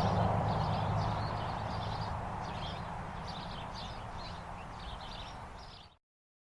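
Country highway ambience: the rumble of a passing vehicle fades away while birds chirp steadily. The sound cuts off abruptly near the end.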